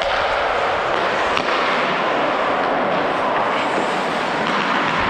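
Ice-skate blades gliding and scraping on rink ice, a steady hiss heard up close from the skater's helmet, with a single faint click about a second and a half in.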